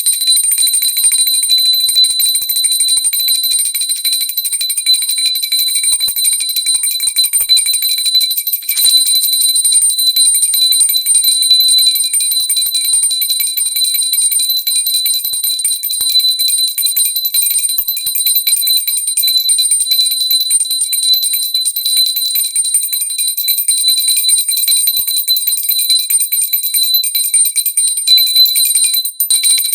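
Small pooja bell (ghanti) rung rapidly and continuously, a bright high-pitched ringing with fast repeated clapper strikes. It breaks off briefly near the end.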